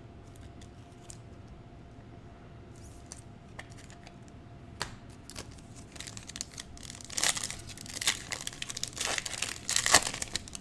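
A foil Panini Prizm trading-card pack being handled with faint clicks at first. About halfway through come loud, crackly crinkling and tearing sounds as the wrapper is ripped open.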